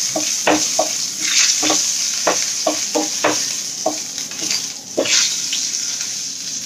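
Hot oil sizzling in a kadai as a tempering of mustard seeds, cumin and dal fries and is stirred, with sharp clicks scattered throughout over a steady hiss.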